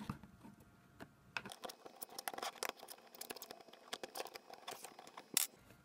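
A small tool tightening the white plastic bolts of a layered acrylic case: a run of light, irregular clicks and scrapes of plastic on plastic, with one sharper click near the end.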